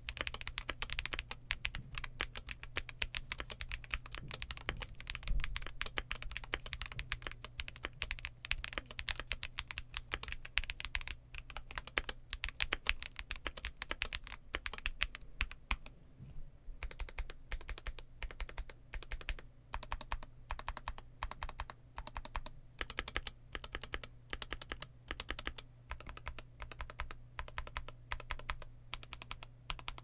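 Fast, continuous typing on a WhiteFox Eclipse aluminium high-profile mechanical keyboard with Moondrop Tessence tactile switches and Ghost Judges Bow keycaps, its keystrokes clacking in a dense stream. There is a brief pause about halfway through.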